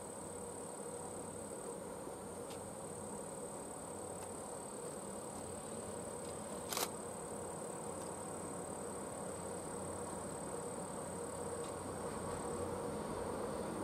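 Steady, high-pitched drone of summer insects. Under it is a faint low rumble that grows slowly louder toward the end as the diesel-hauled train draws nearer. There is one sharp click about seven seconds in.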